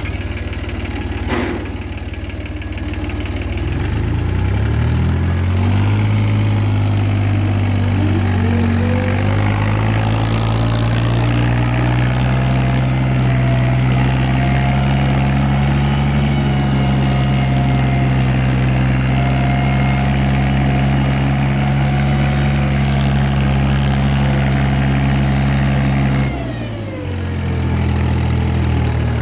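Ford 3630 tractor's three-cylinder diesel engine idling, then revved up about four seconds in and held at high speed for some twenty seconds. Near the end it drops back to idle and then picks up again.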